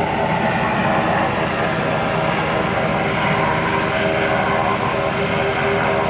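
Steady engine drone with a rush of wind and water, holding level throughout.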